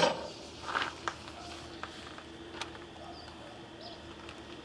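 Quiet outdoor background with a few scattered light clicks and knocks, and a couple of faint bird chirps.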